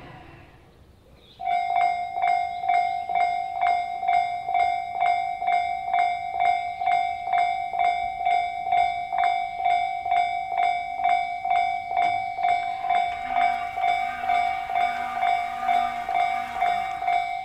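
Japanese railway level-crossing warning bell starting up about a second and a half in. It rings an even, repeated ding about two and a half times a second.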